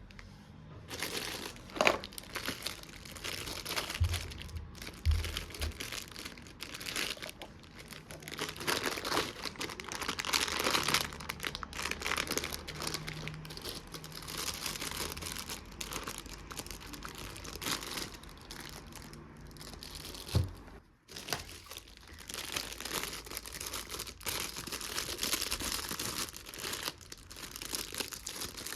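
Toy kitchen items being handled: continuous crinkling and rustling with scattered light clicks and knocks, broken by a brief pause about two-thirds of the way through.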